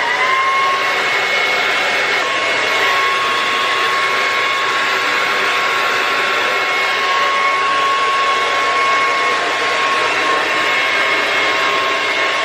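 Handheld blow dryer running steadily: a loud rush of air with a steady motor whine, which lifts slightly in pitch just at the start.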